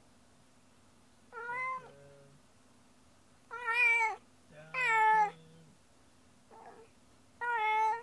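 A domestic cat left home alone, meowing repeatedly: four clear meows, with a fainter one between the last two.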